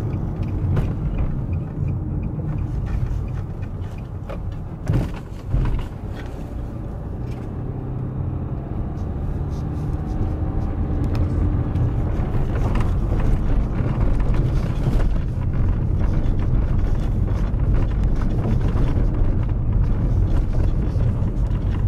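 A car driving, heard from inside the cabin: a steady engine and road rumble with two thumps about five seconds in. In the second half the rumble gets louder as the tyres run over a gravel track, with stones crunching and clicking under the car.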